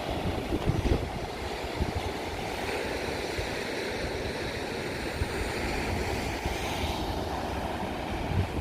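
Strong wind buffeting the microphone in gusts, over the hiss of sea surf washing against rocks, which swells for a few seconds in the middle.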